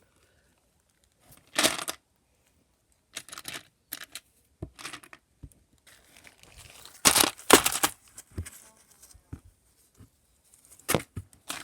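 Plastic packets crinkling in short rustling bursts as they are handled, the loudest about seven to eight seconds in.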